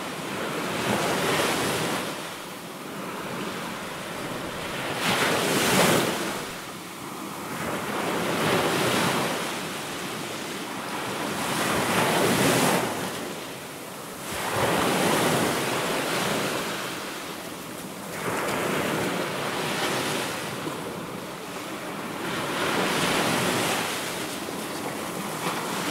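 Surf: waves breaking and washing in, a rushing hiss that swells and fades about every three to four seconds.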